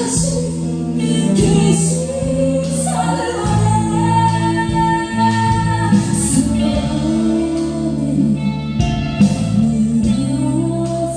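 Live rock band music, with an electric guitar playing a lead line of held notes that bend in pitch.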